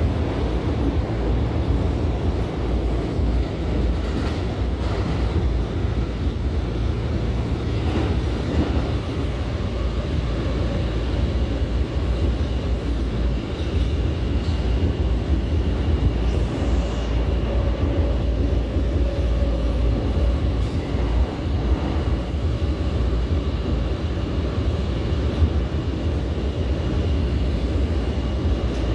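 Steady running noise of an R179 subway car in motion, heard from inside the car: a low rumble of wheels on rail. A faint, steady high tone joins about halfway through.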